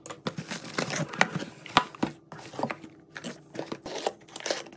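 Cardboard boxes being handled and unpacked, with irregular rustles, crinkles and sharp clicks, and near the end a utility knife slitting the packing tape on a cardboard box.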